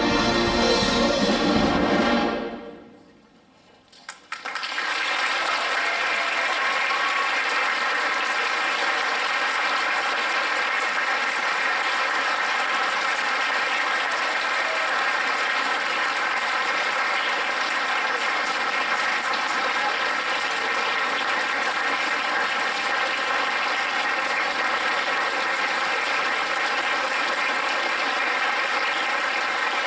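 A high school concert band of woodwinds and brass holds its final chord, which cuts off about two seconds in. After a second or two of quiet, the audience breaks into steady applause that goes on to the end.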